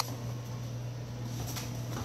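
Great Dane puppies playing on a vinyl floor: faint scuffling of paws and toy over a steady low hum.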